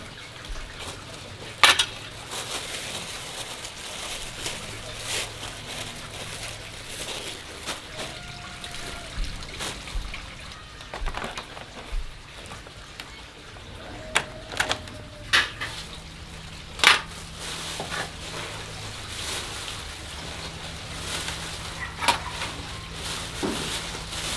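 Irregular clinks and knocks of kitchen dishes and utensils, a handful of sharp ones standing out, over faint water sounds.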